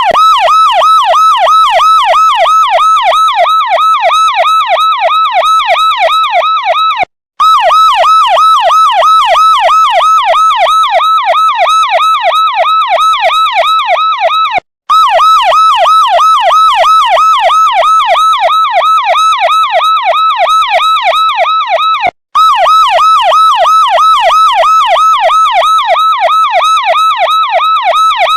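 Electronic police siren wailing in rapid up-and-down pitch sweeps, several a second. It cuts out briefly three times, about every seven and a half seconds, and starts again.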